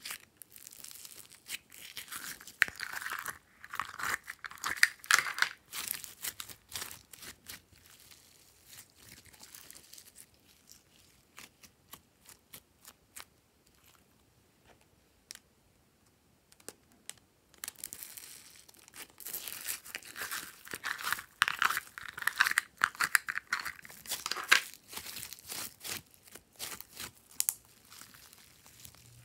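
Foam-bead slime (floam) being squeezed and pressed by hand, giving dense crackling and popping clicks. The crackling comes in two louder spells, a few seconds in and again past the middle, with sparser clicks between.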